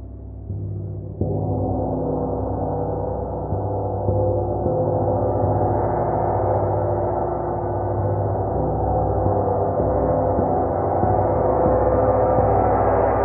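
A gong ringing with many overtones, struck again a few times early on so the sound swells and keeps building, growing brighter toward the end.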